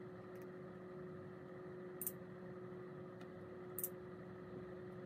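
Faint steady hum with a low tone, and a few short, sharp computer-mouse clicks, the two clearest about two seconds apart.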